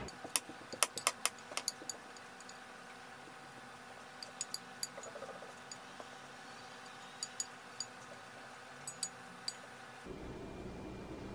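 Chopsticks clicking and tapping against a ceramic baking dish as food is pushed off it onto a plate: sharp clicks in short clusters with pauses between, the busiest run near the start.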